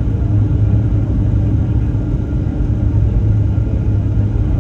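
Steady low rumble of a Boeing 737-800's CFM56 engines and the airflow, as heard inside the passenger cabin during the descent.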